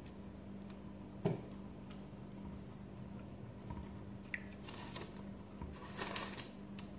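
Pastry brush dabbing water onto shaped bread dough on a parchment-lined baking tray: faint soft brushing sounds, a single knock about a second in, and a run of light scrapes in the second half, over a steady low hum.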